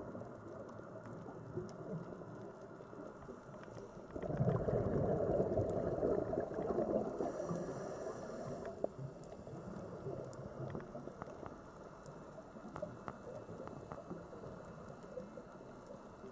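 Underwater sound through a camera housing: a low wash with scattered faint clicks, and a louder bubbling rush from a scuba diver's exhale starting about four seconds in and fading after some five seconds.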